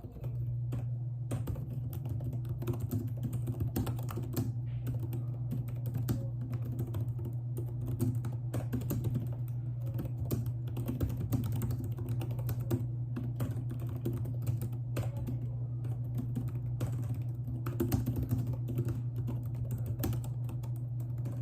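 Computer keyboard being typed on continuously, a stream of quick, irregular key clicks, over a steady low hum.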